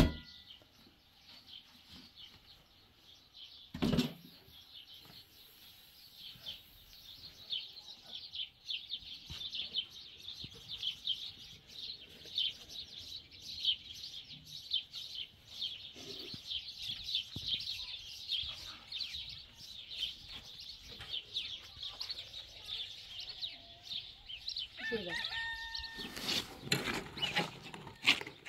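Many small birds chirping and twittering continuously in a dense, busy chorus. A single thump about four seconds in.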